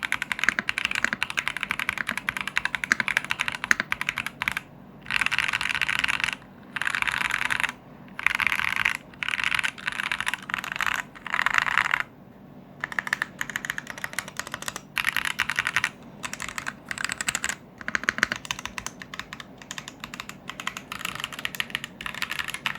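Typing on a VortexSeries VX7 Pro mechanical keyboard with Philikey Fei Yellow switches: fast runs of keystrokes broken by several short pauses.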